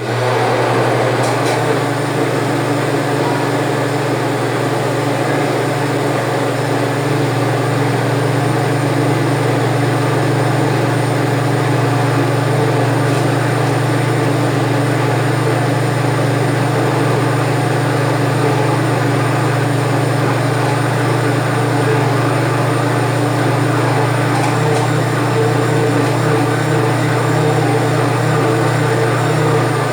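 Kitchen blender motor running steadily at speed, churning the soap mixture of used cooking oil, detergent, vinegar, salt and liquid caustic soda, with a strong low hum under an even whirring noise.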